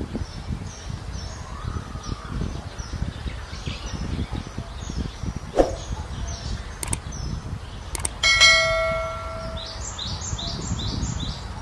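A single ringing metal clang about eight seconds in, dying away over a second or so, after a few sharp knocks. Birds chirp in quick runs of short notes, and wind rumbles on the microphone throughout.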